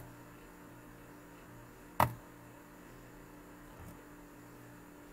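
A faint steady electrical hum, with a single sharp click about two seconds in.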